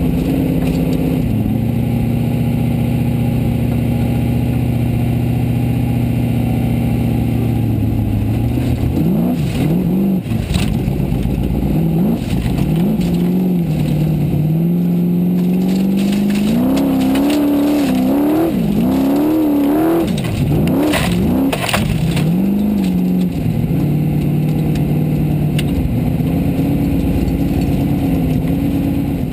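Formula Offroad buggy's engine heard from inside the cockpit. It runs at a steady note for several seconds, then revs rise and fall sharply for about fourteen seconds as the buggy climbs a steep gravel slope, with sharp knocks and clatter through the middle, before it settles back to a steady note near the end.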